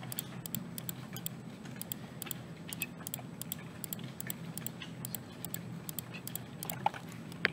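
Computer mouse button clicked over and over, about three sharp clicks a second, each click placing another part. A steady low hum runs underneath.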